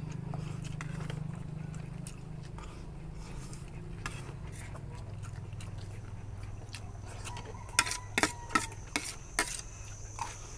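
Spoons clinking and scraping on plates of fried rice, with chewing, as people eat fast. A run of sharp clinks comes about eight to nine and a half seconds in, over a steady low hum.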